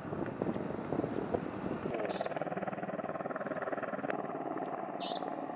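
Attack helicopter at a distance, its rotor beating in a fast, steady pulse, with a faint high whine over it from about two seconds in.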